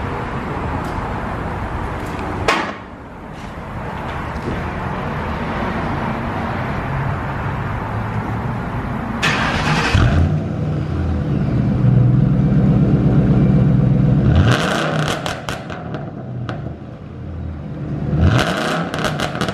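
2009 Ford Crown Victoria's 4.6-litre V8 running through a freshly fitted straight-pipe exhaust. It is revved up about ten seconds in and held high for roughly four seconds, then drops back with a quick run of sharp cracks, and is blipped once more near the end with another run of cracks.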